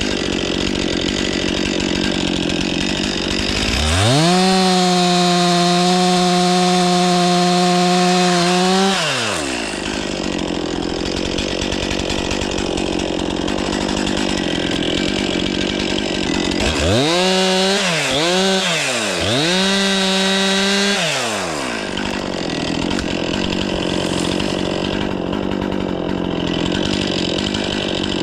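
Stihl 500i two-stroke chainsaw running, its throttle opened to a steady high rev for about five seconds, then blipped twice and held high again for about two seconds before dropping back.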